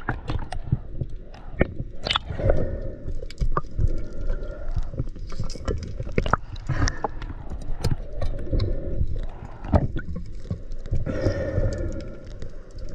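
Underwater camera audio: a muffled low rumble with many irregular clicks and knocks as a diver handles a speared perch on the spear shaft.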